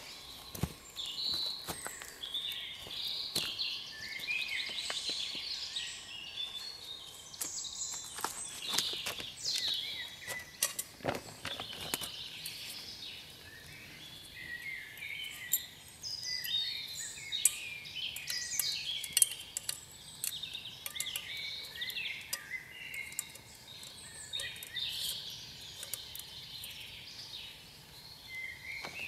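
Woodland birds singing, with many short chirps and phrases throughout. Scattered sharp clicks and knocks sound over them, clustered about a third of the way in.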